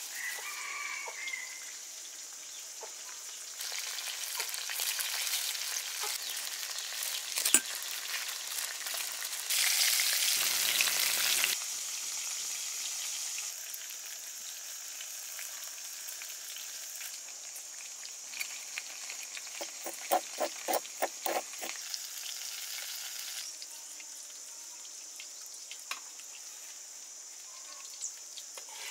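Chicken pieces frying in a pan of hot oil: a steady sizzle that grows louder and softer in stretches, with a short run of light clicks about two-thirds of the way through.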